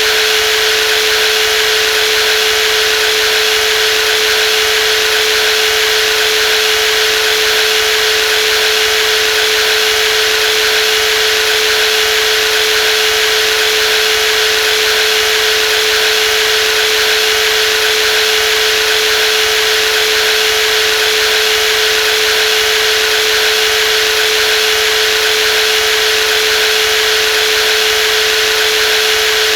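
Brushless jigsaw running steadily at constant speed: an unchanging motor whine with one strong steady tone over a rushing hiss.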